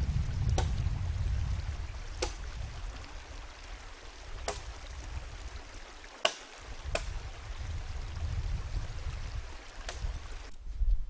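Axe chopping into the limbs of a downed tree: six sharp single strikes, one to two seconds apart, over the low steady rush of a flowing stream.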